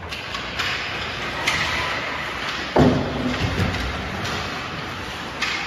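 Ice hockey play in an arena: sharp clacks and knocks of sticks and puck over a steady hiss, with a heavier thud a little under three seconds in.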